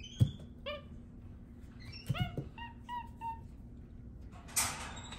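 Capuchin monkey giving short, high, falling chirps and squeaks, with a quick run of three or four in the middle, while it peels a banana. A couple of soft knocks and a brief hiss-like rustle come near the end.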